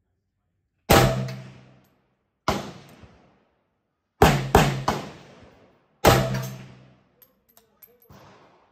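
Gunshots from an Arsenal SAM7R AK-47 rifle in 7.62×39 fired semi-automatically: about six single shots at an uneven pace, two in quick succession around four seconds in, each trailing off in an echo.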